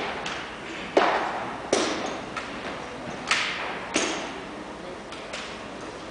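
Sharp knocks and slaps from drill rifles being handled and set down on a hardwood gym floor: four loud strikes spaced about a second apart with a few fainter ones, each echoing briefly through the hall.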